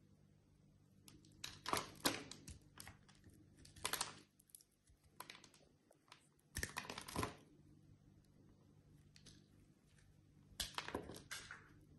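Dry bar soap being cut with a small blade, crunching and crackling as cubes and flakes break away, in four main spells of crackling a few seconds apart.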